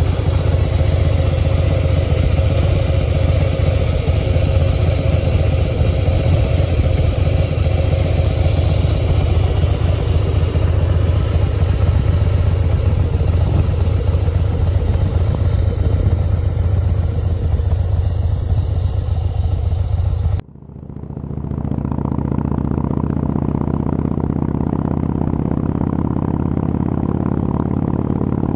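Harley-Davidson Breakout's V-twin engine running with a deep, steady rumble as the bike is ridden, heard from on the bike. About twenty seconds in it cuts off suddenly and a duller, steady motorcycle engine hum from a different recording takes over.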